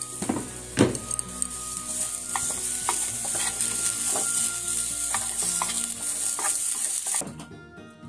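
Shogoin turnip slices sizzling as they pan-fry on low heat, with sharp clicks of chopsticks against the pan as the slices are turned. The sizzle cuts off suddenly about seven seconds in, leaving soft background music.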